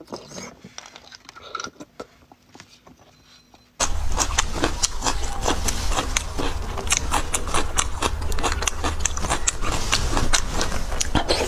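Close-miked eating of spicy beef bone marrow. First a few quiet wet mouth sounds, then a sudden jump in loudness about four seconds in to a dense run of sharp clicks and smacks over a steady low hum.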